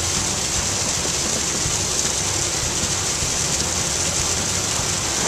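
A boat's engine running steadily under way, a constant low hum under an even hiss of wind and water.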